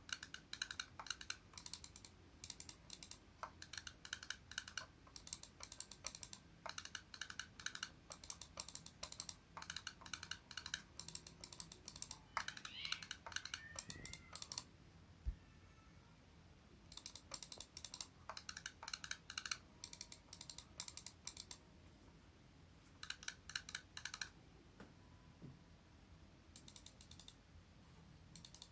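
Razer wireless gaming mouse buttons clicked in quick runs of about a second each, with short gaps and a few longer pauses. A brief sliding squeak comes about halfway through.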